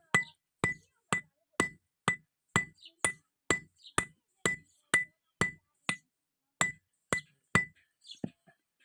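Blacksmith's hammer striking iron on an anvil while forging a round rod into an axe head: a steady run of about sixteen blows, roughly two a second, each with a short metallic ring, the blows stopping near the end.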